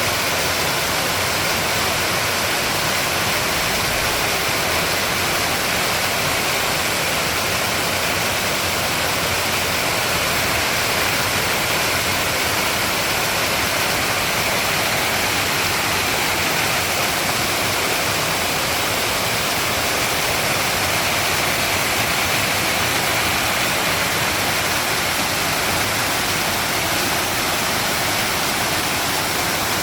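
Running water rushing steadily, an even unbroken splashing hiss with no change in level.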